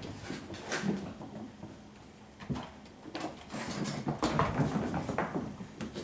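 Bengal kittens at play: paws pattering and scrabbling, with irregular light knocks and thumps. It grows busier in the second half.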